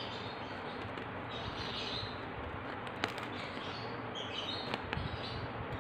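Knife blade prying at a durian's spiny husk along its seam, with one sharp click about three seconds in and a few small clicks near the end. Faint bird chirps sound in the background.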